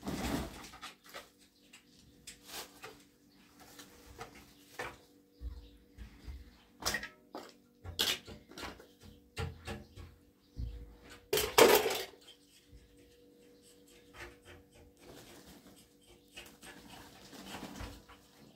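Metal pans and trays clinking and a woven plastic sack rustling as they are handled, in scattered short knocks and rustles with one louder clatter a little past the middle. A faint steady hum runs underneath.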